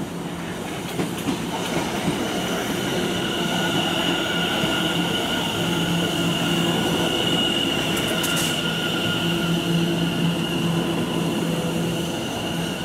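London Overground electric train running into the platform, with a steady high whine over the rumble of wheels on rail.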